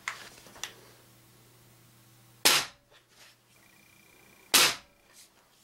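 Ruger Blackhawk Elite .177 spring-piston air rifle firing twice, about two seconds apart: each shot a sharp report with a short ringing tail.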